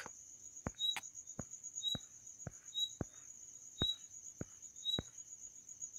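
Faint background with a steady high-pitched whine, a short high chirp about once a second and soft clicks about twice a second.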